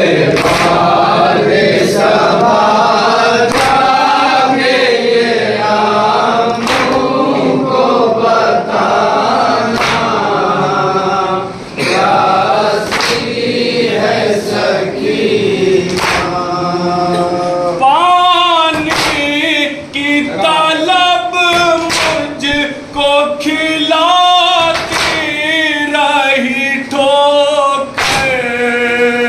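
Men chanting an Urdu nouha, a Shia mourning lament, in unison over sharp, regular slaps about once a second: the chest-beating of matam. About two-thirds of the way through, a single male reciter's voice takes the lead line.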